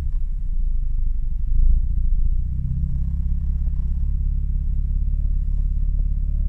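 Mazda RX-8's recently rebuilt Renesis rotary engine idling steadily at operating temperature.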